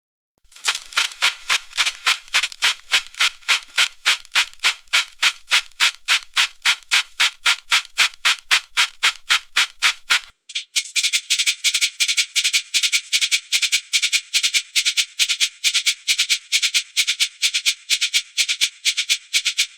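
Dishwasher running, its water spray sweeping in rhythmic swishes about four to five times a second. About halfway through there is a brief break, after which the swishing goes on thinner and higher.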